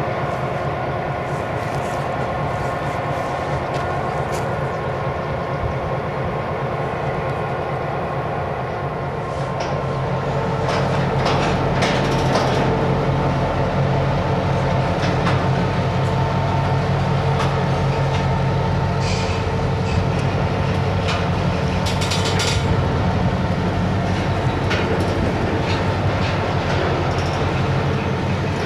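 Diesel-electric freight locomotives idling, then throttling up about ten seconds in as the train starts to move. Freight cars roll past on the rails, with short bursts of metallic wheel noise.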